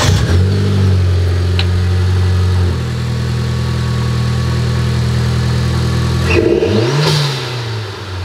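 Mitsubishi Lancer Ralliart's turbocharged 2.0-litre four-cylinder, just started, idling through a freshly fitted AEM cold-air intake. The fast idle settles slightly lower about three seconds in, and the engine is given one quick rev near the end.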